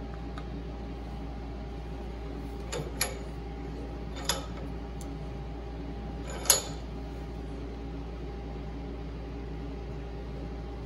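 A few short, sharp metal clicks, the sharpest about six and a half seconds in, as a hollow driver shaft slipped over a bent screw clamped in a vise levers it straight. A steady workshop hum runs underneath.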